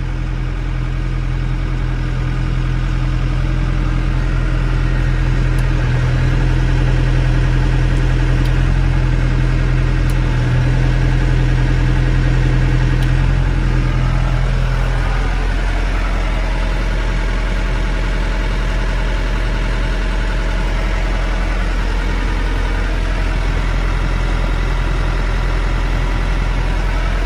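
Yanmar EG48 tractor's diesel engine running steadily, heard from inside the cab. About halfway through, the deep hum drops and the sound of the machine changes.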